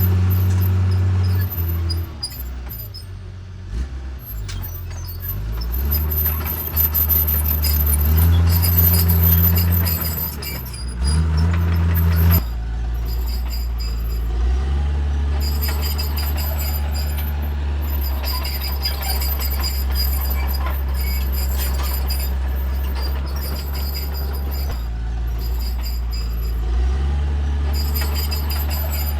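Diesel engine of a Cat D3C bulldozer working, its low note rising and falling with load for the first dozen seconds, then running steadily. A thin high squeal comes and goes above it.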